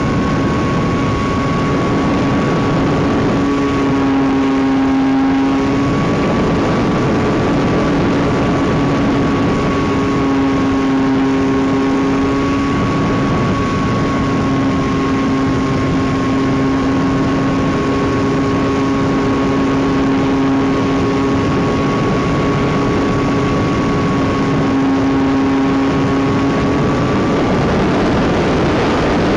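RC model airplane's motor and propeller running steadily in flight, heard from on board the model: a steady tone that wavers slightly in pitch over a continuous rush of noise.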